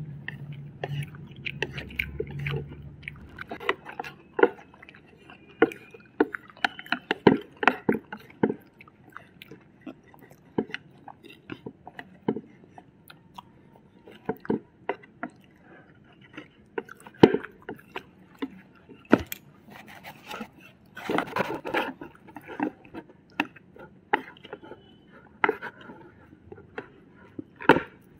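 Eating with chopsticks: chewing and biting, with many sharp clicks and taps of chopsticks against ceramic plates.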